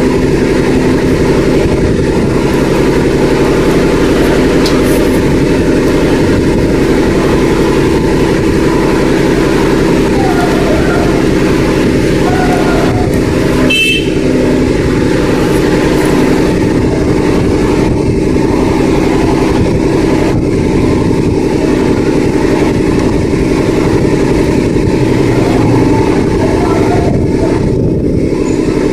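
A steady engine drone that hums without change, with a short high tone about fourteen seconds in.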